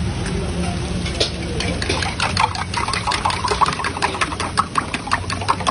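Fast, rapid metal-on-metal clinking of cooking utensils at a kothu parotta stall, starting about two seconds in, over a steady low mechanical hum.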